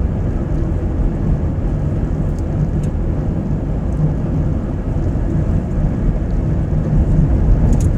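Steady low rumble of a car driving along a road, tyre and engine noise heard from inside the cabin.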